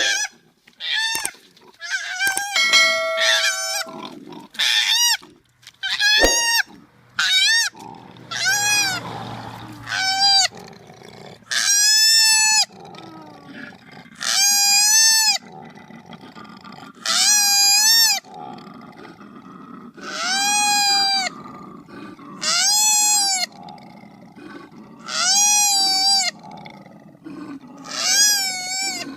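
A koala crying out over and over: high, wailing, pig-like squeals, each under a second long and rising then falling in pitch, coming every two to three seconds, with low grunting between the cries.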